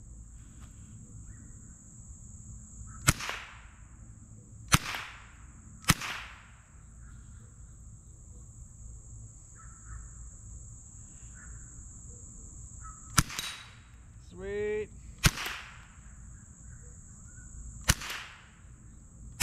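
Six single shots from a Savage .22 Long Rifle rifle, spaced one to seven seconds apart, with rounds striking steel gong and cross targets. A steady high-pitched insect drone runs underneath.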